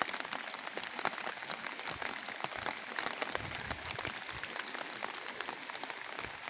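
Heavy rain falling steadily: a continuous hiss dotted with many small ticks of drops striking close by.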